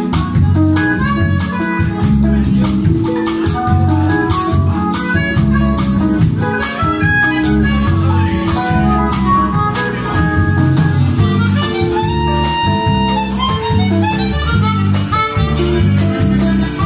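Live jazz band playing: a harmonica carries the melody over electric guitar, electric bass and drums with a steady beat.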